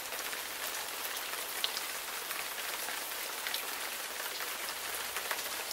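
Steady hiss of falling rain with faint, scattered drop ticks.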